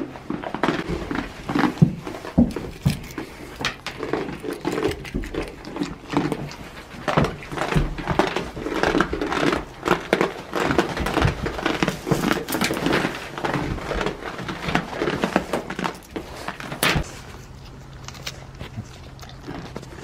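Goats feeding on Christmas tree branches: a dense, irregular run of crackling, crunching and rustling as they bite, tug and chew. It quietens about three seconds before the end.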